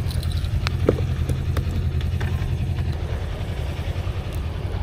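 Steady low rumble of wind buffeting the microphone, with a few light clicks and a knock in the first two seconds, the knock loudest about a second in.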